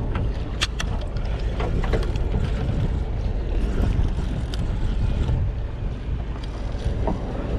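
Wind buffeting the microphone on a fishing boat at sea, a steady low rumble, with a few sharp clicks or knocks in the first two seconds.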